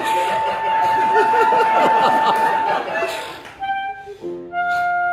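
Clarinet holding one long high note while the audience laughs, with the note ending about three seconds in. After a short pause, piano chords come in and the clarinet takes up a new sustained, lower note near the end.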